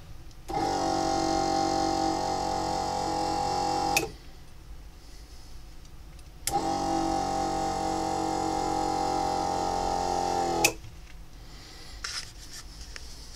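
Boat Leveler trim tab hydraulic pump motor running twice, each time a steady hum of about four seconds that starts abruptly and ends with a sharp click, as the system is run from its rocker switches on a test.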